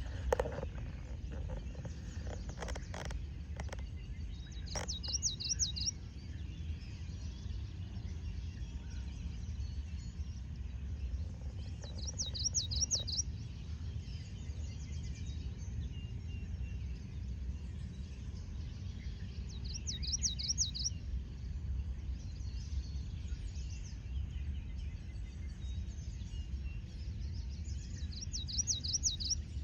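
A songbird singing a short phrase of rapid, high, up-and-down notes, repeated four times about every eight seconds, over a steady low rumble. A few sharp knocks sound in the first few seconds.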